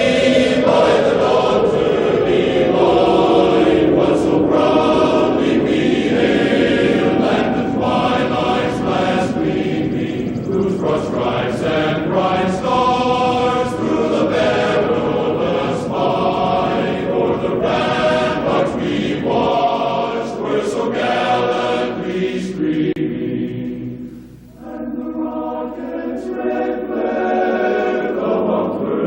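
Choral singing as background music, with a siren's tone gliding down and winding off over the first few seconds. The music dips briefly a few seconds before the end, then returns.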